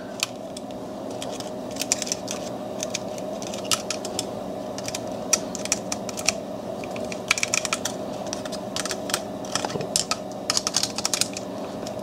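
Small irregular metallic clicks and taps of needle-nose pliers and a punch against a Browning Buck Mark pistol's frame, as a pin is worked back into the trigger assembly. A steady faint hum runs underneath.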